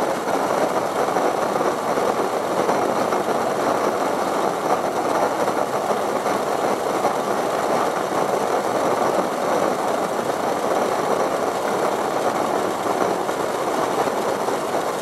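Copper coil alcohol jet stove burning at full tilt, its vapour jets giving a steady, even roar.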